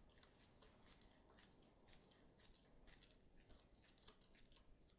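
Faint small metallic clicks, about two a second, of a hand key turning the pad retaining screw into a bicycle disc brake caliper.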